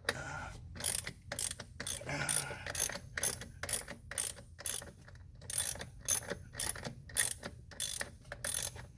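Hand socket ratchet clicking as it turns out the 14mm caliper mounting bolt on a motorcycle's rear brake caliper: a run of quick clicks, about three a second, with a short pause about halfway through.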